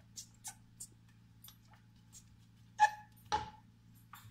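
Light, scattered clicks and knocks of someone moving about a kitchen, with two sharper knocks about three seconds in, over a steady low hum.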